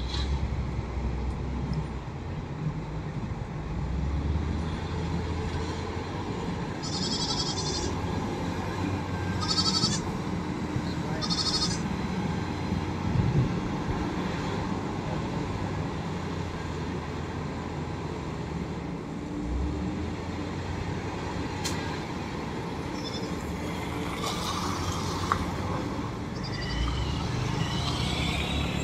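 SDLG wheel loader's diesel engine running and working under load, a steady low rumble. About seven to twelve seconds in, three short high-pitched calls sound over it.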